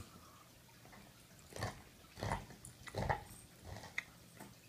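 A small pug-type dog making about four short noises with its breath as it rolls and rubs its face on the carpet.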